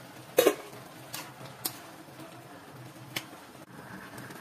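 Soup at the boil in an open pan on a portable gas stove: a low steady hiss with a handful of sharp clicks, the loudest a double click about half a second in.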